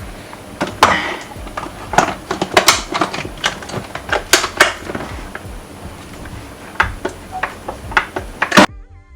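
Irregular sharp clicks and knocks of kitchen containers and utensils being handled, as the blender is loaded with water and ingredients, with one loud knock near the end. Background music begins just after it.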